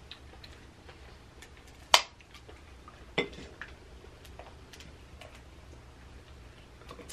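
Cooked crab legs being cracked and pulled apart by hand: two sharp snaps of shell, about two seconds in and again a second later, among small clicks and crackles of shell.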